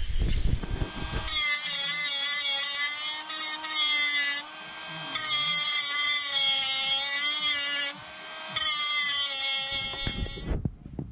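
Handheld electric power tool running in three bursts of two to three seconds each, its motor whine wavering slightly in pitch, with brief pauses between the runs.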